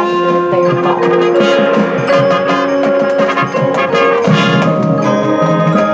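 High school marching band playing: held brass chords that change every second or so, with percussion underneath.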